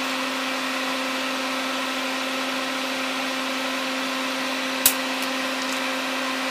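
Steady whir of a small motor with a constant hum. One sharp snip near the end as flush cutters cut through a pin-header strip.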